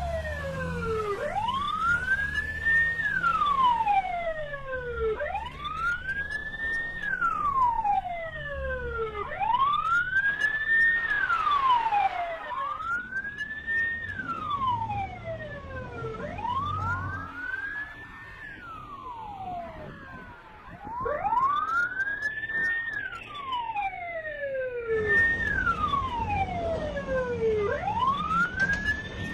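Police-car siren wailing, its pitch climbing quickly and then sliding slowly back down, about once every four seconds, over a low traffic rumble.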